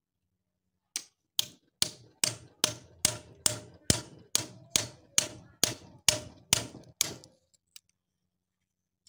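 A hammer strikes the back of a knife blade held against a cow's hoof, driving it into the hoof horn. About fifteen sharp, evenly spaced knocks come at a little over two a second, each with a short ring, and stop about seven seconds in.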